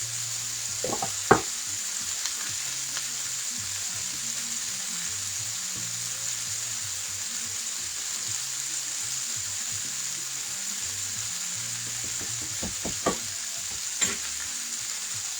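Seasoned beef pot roast searing in a pan with onion, sizzling steadily. A few light knocks about a second in and again near the end.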